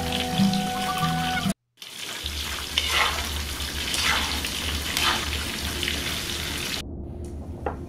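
Battered vegetable pieces deep-frying in hot oil: a steady sizzle that starts about two seconds in, with swells about once a second as a utensil stirs them, dropping away a second before the end.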